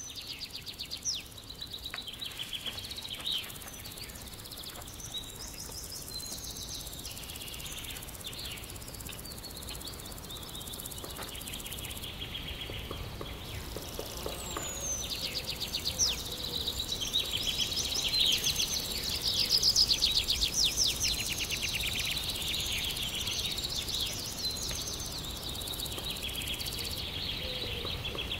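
Small songbirds chirping and singing in rapid trills, with a few quick descending whistles. The calls overlap and grow busier and louder in the second half.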